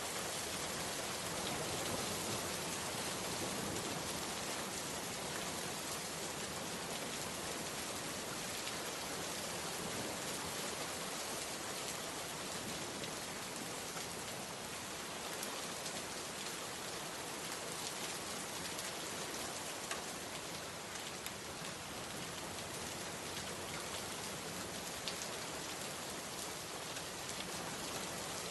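Steady rain falling and pattering on surfaces, with scattered sharper drop ticks.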